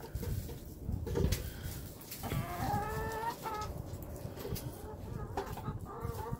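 Chickens clucking, with a longer run of clucks about two to three seconds in, over a low rumbling noise that is loudest about a second in.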